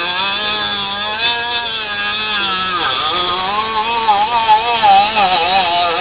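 Milling machine cutting into a ukulele's wooden body: a loud, steady whine that wavers up and down in pitch as the cutter works.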